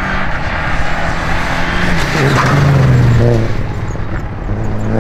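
Renault Clio rally car driving past at speed, its engine note stepping down in pitch about two seconds in and loudest about three seconds in.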